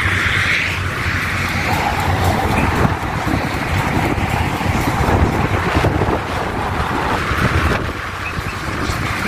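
A motor running steadily while hydraulic oil is pumped through a hose nozzle into a heavy machine's tank.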